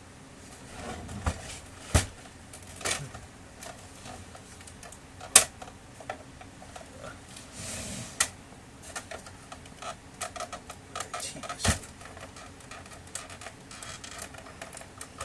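Plastic casing flaps of a Samsung ML-1665 laser printer being pried and pulled off by hand: irregular clicks, knocks and snaps of plastic, one sharp snap about five seconds in and a run of quick small clicks later on.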